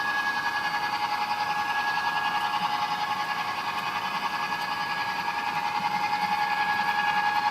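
HO-scale model train running on the track: a steady, thin, high-pitched whine with a fast rippling rattle and almost no low end.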